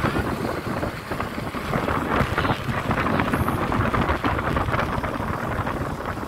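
Wind buffeting the microphone during travel, over a steady low rumble.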